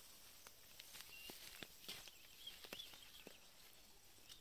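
Near silence, with a few faint scattered clicks and brief faint high bird chirps.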